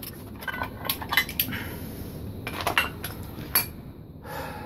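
Irregular sharp metal clinks and clicks of a socket wrench working a bolt on the cast-iron bottom plate of a Cardinal 6B vise, a dozen or so strikes, with a brief scraping rustle near the end.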